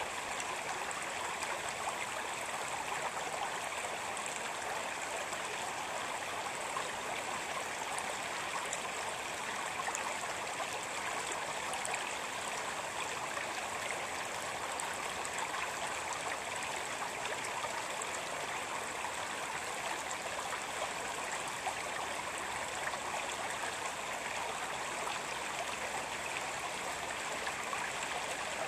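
Shallow stream running over a rocky bed: a steady rush of flowing water with trickling and gurgling over the stones.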